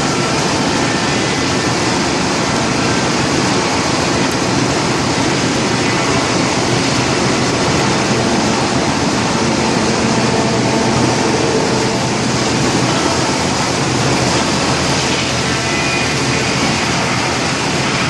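Industrial wood chipper running together with a wheel loader's engine while branches are fed in by grapple: a loud, steady machinery noise that does not let up.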